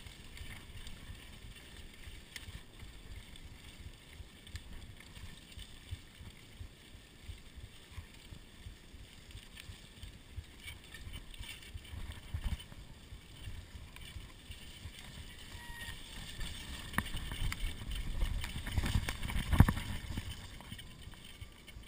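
Mountain bike ridden fast over a wet, muddy dirt trail: wind rumble on the rider's camera microphone with tyre noise and rattling from the bike. It grows louder, with a run of jolts and knocks, in the last few seconds.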